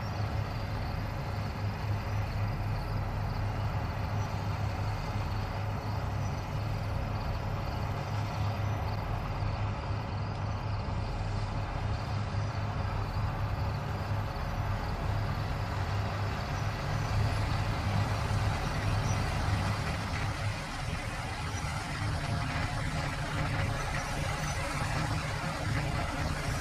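Fendt 9T combine harvester running steadily at work: a deep engine hum under an even rushing noise.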